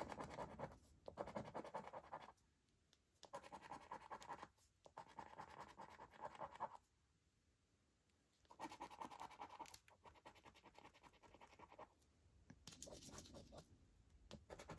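A coin scraping the scratch-off coating from a paper lottery scratchcard: faint bursts of quick back-and-forth strokes, several times over, with short pauses between them.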